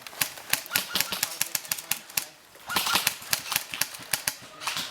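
Airsoft guns firing: rapid, clattering runs of sharp shots, with a short lull about halfway through.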